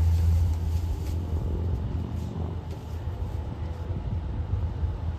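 Cessna 208B Grand Caravan's single turboprop engine and propeller droning as the plane climbs away, fading steadily over a few seconds.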